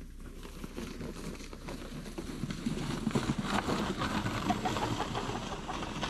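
A sled sliding down packed snow, a hissing, crackling scrape that grows louder as it comes closer.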